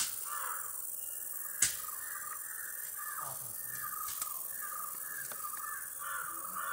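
Birds calling over and over in a quick, continuous run, with two sharp clicks, one at the very start and a louder one nearly two seconds in.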